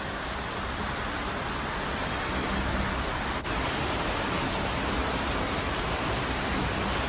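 Steady rush of running water in a cave, growing slightly louder as it goes on.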